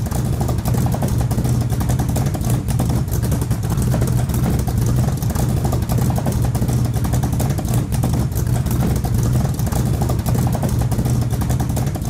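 A motor vehicle engine running steadily and loudly.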